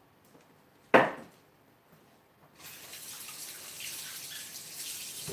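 A single sharp knock about a second in, then a kitchen tap running steadily for about three seconds.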